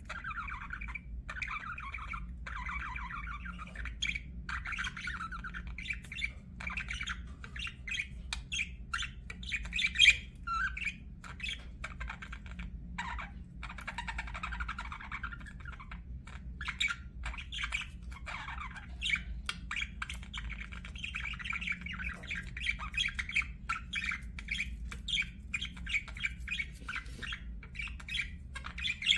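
Budgerigar chatter: continuous warbling and chirping with sharp clicky squawks, one louder call about ten seconds in, over a steady low hum.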